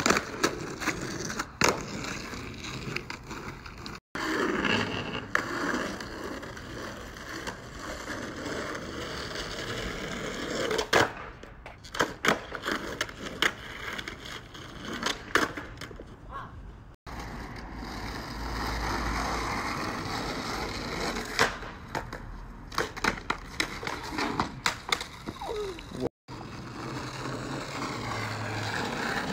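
Skateboard wheels rolling on asphalt, with sharp clacks from the board's tail popping and the board landing, repeated many times. The sound is broken by a few abrupt gaps.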